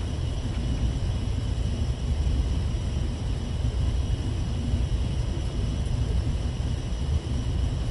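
Steady low rumble of a ship's machinery heard inside a cabin, with a faint steady high hiss over it.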